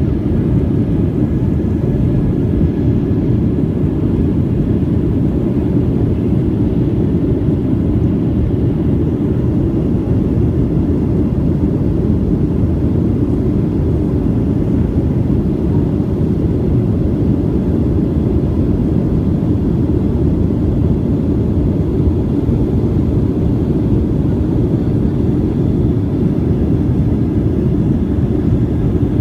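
Airliner in flight: a steady low rumble of engines and rushing air, heard from inside the passenger cabin.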